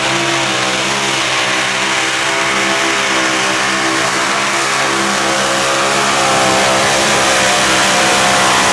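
Mini modified pulling tractor's supercharged engine running flat out at high, nearly steady revs under heavy load as it drags the weight-transfer sled, its pitch wavering slightly. It grows a little louder near the end.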